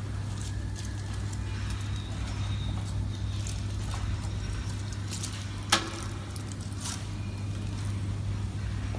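Blister opening (deblistering) machine running: a steady motor hum with scattered clicks and light rattles as blister cards are fed through its rollers to push the capsules out of the aluminium-plastic packs. One sharp click stands out a little past the middle.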